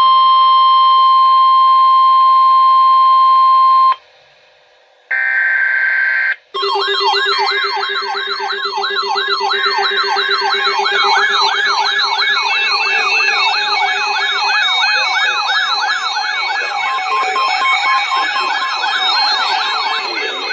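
A steady weather-radio warning alarm tone, about 1050 Hz, for about four seconds. About five seconds in comes a short buzzy burst of SAME digital alert data. From about six and a half seconds, several weather alert radios sound their warbling alarms at once, overlapping.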